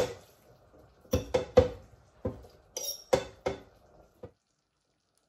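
Metal fork clinking and scraping against a plate as shredded pork is pushed off it into a slow cooker pot. It is a run of sharp, ringing clinks, the loudest right at the start, stopping about four seconds in.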